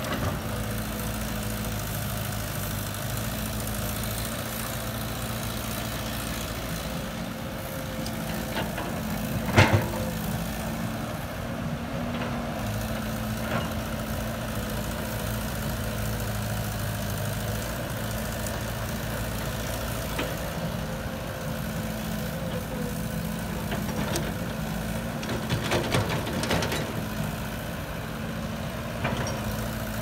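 Diesel engine of a Caterpillar crawler excavator running steadily while it digs and loads soil into a dump truck. A single loud knock comes about ten seconds in, and a short run of smaller knocks near the end.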